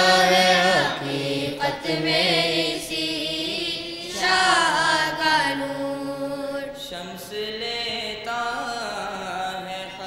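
Group of student singers performing a Dawoodi Bohra madeh, a devotional song, in drawn-out, ornamented sung phrases that glide in pitch.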